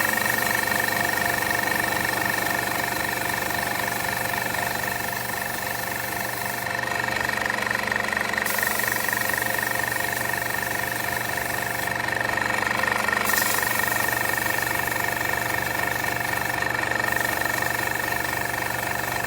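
Master Airbrush Cool Runner II airbrush compressor running steadily: a motor hum with a high whine. A hiss over it drops out briefly about three times.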